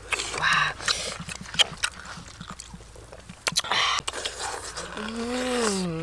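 A person eating roasted cow-leg meat: mouth clicks and lip smacks with a couple of short breathy puffs, then a drawn-out 'mmm' that rises and falls near the end.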